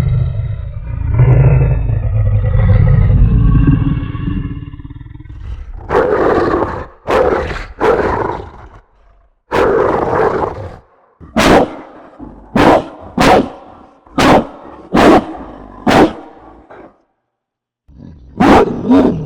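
Monster-dog (Cerberus) sound effect: a deep, low growl for about five seconds, then a run of loud, deep barks. The first few barks are drawn out and the later ones short and quick, with a brief pause before more barks near the end.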